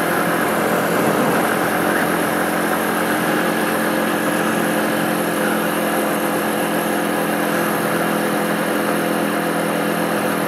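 125cc motorcycle engine running at a steady cruising speed, its note holding even with no gear changes or revving, under a constant hiss.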